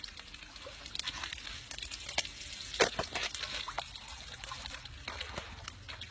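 Scattered clicks and small knocks over a faint trickle of liquid, with one sharper knock about three seconds in.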